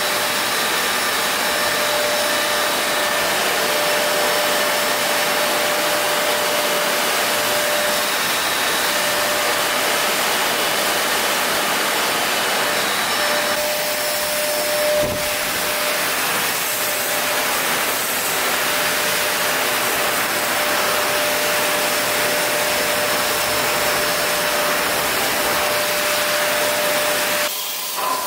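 Kärcher WD1 Classic wet/dry vacuum cleaner running steadily, with a rushing airflow and a constant motor whine. About halfway through, the sound briefly changes with a short falling sweep.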